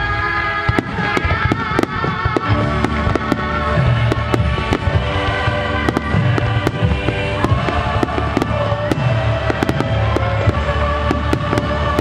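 Fireworks display: a rapid run of bangs, several a second, from shells and rising comets bursting, over the show's accompanying music with held tones and a pulsing bass.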